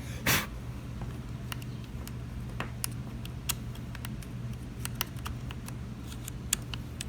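Small parts of a power tool being handled while a new carbon brush is fitted: a short rustling noise about a third of a second in, then scattered small clicks and taps over a steady low hum.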